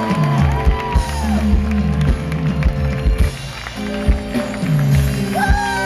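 Live band playing at a curtain call: bass and sustained chords under a steady drum beat, with a melody line carried on top.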